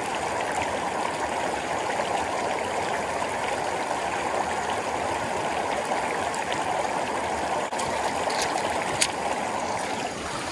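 Shallow mountain stream rushing steadily over rocks right at the microphone, with a single sharp tap about nine seconds in.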